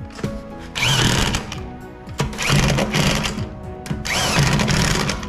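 Corded electric impact wrench running the wheel's lug nuts on in three bursts of about a second each, each starting with a quick rise in pitch as the tool spins up.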